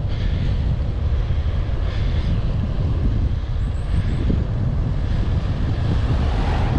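Wind buffeting a helmet-mounted camera's microphone while cycling: a steady, loud low rumble throughout.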